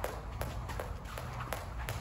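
Jump rope slapping the floor on each turn, a steady sharp click about three times a second, with the jumper's light footfalls.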